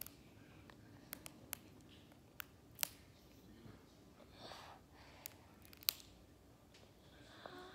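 Faint, scattered sharp clicks and crinkles of plastic toy packaging being handled and opened, with a short rustle about four and a half seconds in.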